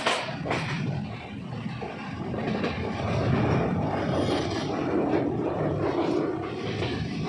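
Steady rain, heard as a continuous noise with a heavy low rumble, and a few sharp patters near the start.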